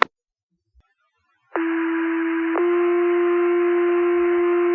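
Two-tone sequential fire pager alert over the dispatch radio: a steady low tone for about a second, then a switch to a second tone held for about three seconds, the signal that sets off the station's pagers before a dispatch. A short radio click comes first.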